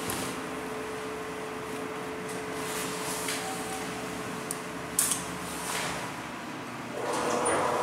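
Inside a ThyssenKrupp hydraulic elevator car: a steady hum, a sharp click about five seconds in as a car-station button is pressed, then a rising rush of noise near the end as the car's sliding doors begin to close.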